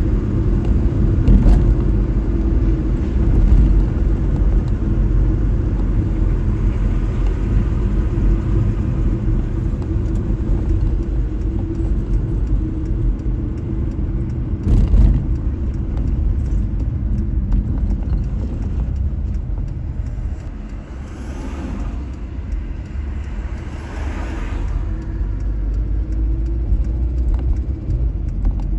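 Car driving on a city road: a steady low rumble of road and tyre noise with a steady hum. A sharp knock comes about halfway through, and two short swells of hiss follow later.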